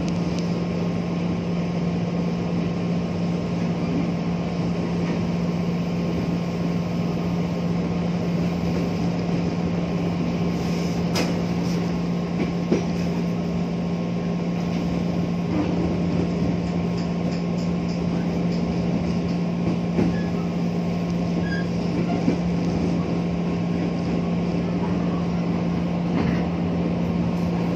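An electric commuter train in motion, heard from inside the carriage: a steady low hum over rolling rail noise. A few sharp clicks come as the wheels pass over rail joints, more of them near the end as the train crosses a set of points.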